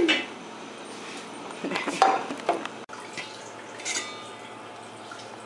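Kitchen clatter, then a stainless steel pot lid lifted off a pot of stew on the stove, with a short metallic clink and ring about four seconds in, over a faint steady hiss.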